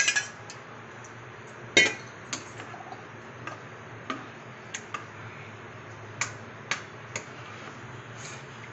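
Metal spoon clicking against a bowl at irregular intervals while stirring wet sago pearls and curd, the loudest click about two seconds in.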